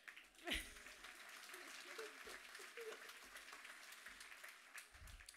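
Audience applauding, with scattered voices and a brief falling shout about half a second in.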